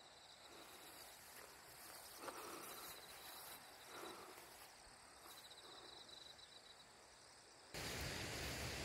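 Faint insects chirping: a steady high buzz with pulsing trills that come and go. Near the end it gives way abruptly to a louder steady rushing noise.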